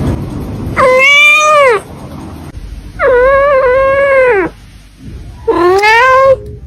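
British Shorthair kitten meowing loudly three times, each meow lasting about a second and rising then falling in pitch. A brief low bump comes just before the first meow.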